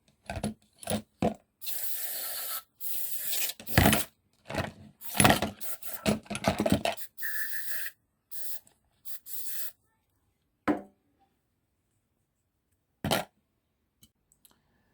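Clutch slave cylinder parts (piston, seal and spring) being washed off and handled: short stretches of hissing and scraping with knocks. A few isolated clicks follow in the second half.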